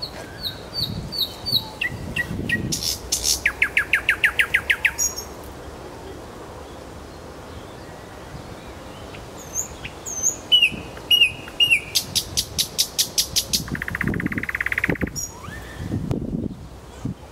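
Thrush nightingale singing: two phrases of repeated clear notes, each ending in a fast, even rattling trill, with a pause of about four seconds between them.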